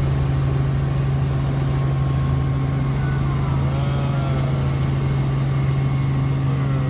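Helicopter running: a steady, unbroken engine and rotor drone with a strong low hum.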